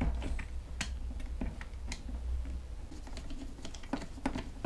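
Irregular small clicks and taps of hands pressing wires into their channels in a power tool's plastic housing. Near the end a screwdriver is set to the cord-grip screws.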